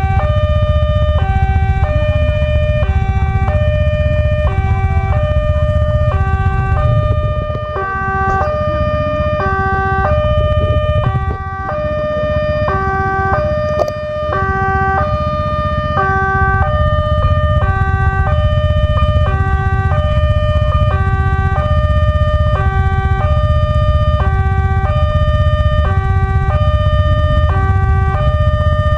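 Indonesian railway level-crossing warning siren sounding while the barrier is down, an electronic alarm that alternates between a low and a high note at about one pair a second, over a steady low rumble.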